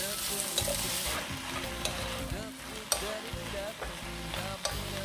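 Blanched butterbur stalks sizzling in oil in a coated frying pan while being stirred and tossed with a wooden spatula, which knocks against the pan several times.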